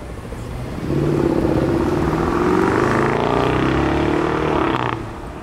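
A car engine revving hard as the car accelerates past, its pitch rising steadily for about four seconds before the sound cuts off suddenly.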